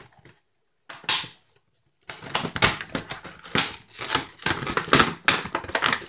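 Clear plastic packaging bag crinkling and rustling as it is handled: a short crinkle about a second in, a brief pause, then dense, continuous crackling from about two seconds on.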